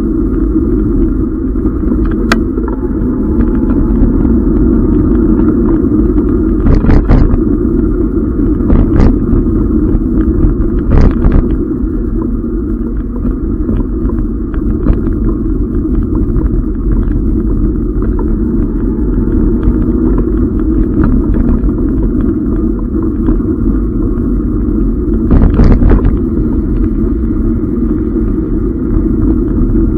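Steady, muffled rumble of an e-bike riding over a wet, rough road, picked up through the camera's waterproof case. It is broken by a few sharp knocks in the first half and one near the end, as the bike jolts over the broken surface.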